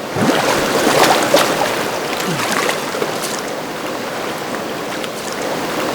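Steady rushing noise of running water, a little louder in the first second and a half, with a few faint knocks early on.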